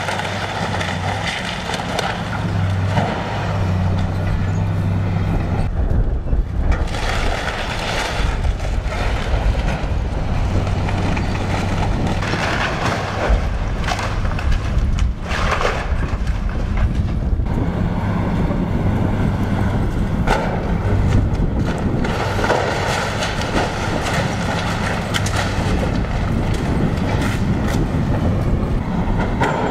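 Tracked hydraulic excavator's diesel engine running with a steady low hum while it tears into a building, with bursts of cracking and crashing wood and debris, thickest in the middle stretch.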